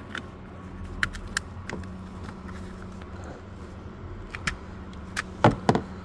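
Seat-belt latch plate clicking into a rear seat-belt buckle to test that it latches: several sharp plastic-and-metal clicks with handling sounds, the loudest two close together near the end.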